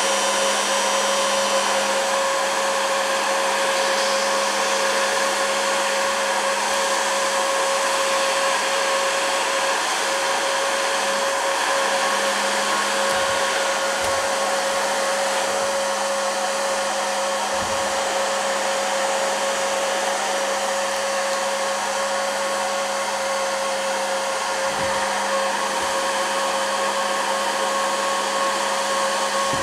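Corded heat gun running continuously, a steady airflow rush with a constant motor hum. It is blowing hot air on a lump of PLA to soften it.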